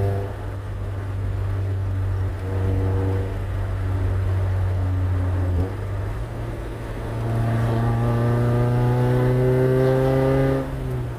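Honda H23A1 2.3-litre four-cylinder engine of a 1996 Prelude Si, heard from inside the cabin while driving, with road noise. The engine note rises steadily over the last few seconds as the car accelerates, then falls away abruptly near the end.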